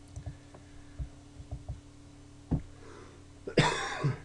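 A steady low electrical hum with a few soft, low thumps. About three and a half seconds in, a person gives one loud, harsh cough.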